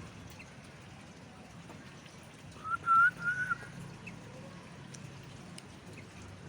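A short whistled phrase of a few linked notes, about a second long, partway through, over a faint steady low background hum.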